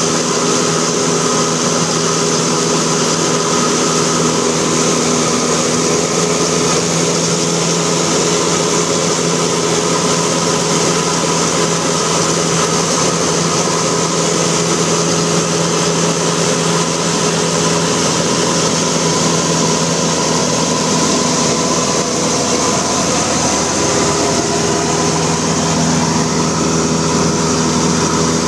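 Cessna 172 Skyhawk's piston engine and propeller running steadily in cruise flight, heard on board as a loud, even drone mixed with rushing airflow.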